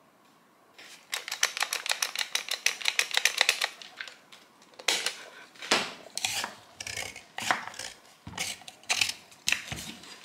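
Small hard clicks and knocks from handling an old jig saw and tools on a workbench: a fast run of rattling clicks, about ten a second for a couple of seconds, then a string of separate knocks and clatters.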